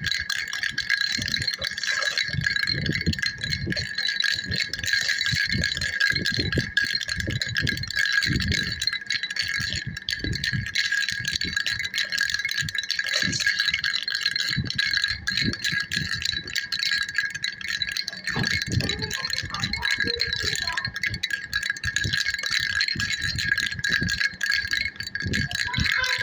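Baby rattle shaken on and on, a continuous ringing, chime-like jingle with soft, irregular low knocks underneath.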